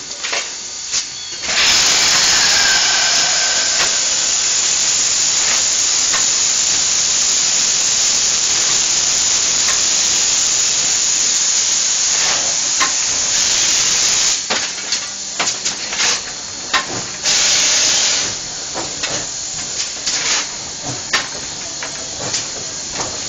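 White Pass & Yukon No. 70 steam locomotive venting steam in a long, steady hiss from about two seconds in until about fourteen seconds. It then works in slow, uneven exhaust puffs with one more short hiss, labouring up a steep 5% grade on wet rail without sand.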